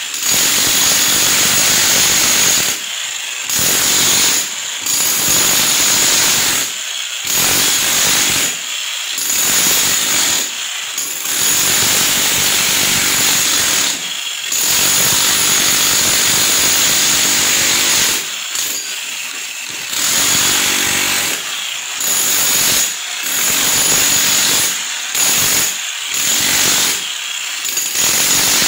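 A power tool running in repeated long bursts, a harsh noise with a steady high whine over it, cut off briefly about a dozen times.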